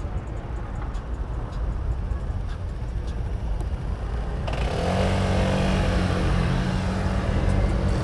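Wind and road rumble from riding a bicycle. About halfway through, a car engine close by takes over, idling steadily at low revs: the white Mercedes E-Class convertible waiting at the lights.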